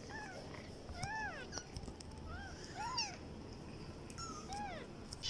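Young kittens, about ten days old, mewing: a series of six or seven short, high-pitched mews, each rising and then falling in pitch.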